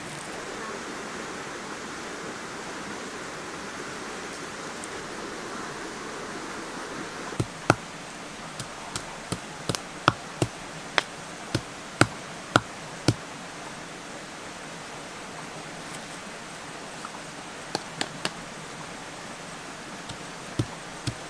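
A pestle pounding into a small mortar: sharp knocks, about two a second for several seconds, then a pause and a few more strokes. Before the pounding starts there is a steady soft hiss.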